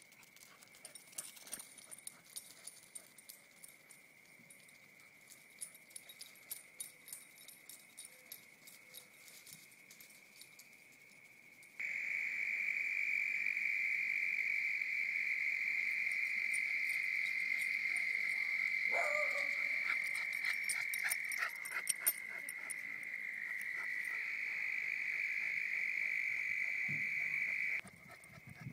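A steady, high-pitched chorus of insects, with scattered clicks and taps over it. It turns abruptly louder and fuller about twelve seconds in, and drops back just as suddenly near the end.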